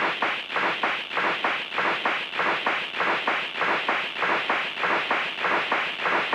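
A live sample-based electronic music loop: a steady rhythm of noisy, scraping percussive strokes, about three to four a second, with little bass.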